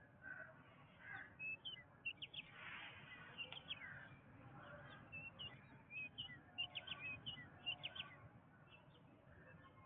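Jungle birds chirping and calling: many quick chirps and short whistled notes, thickest from about two to eight seconds in, over a faint steady hiss.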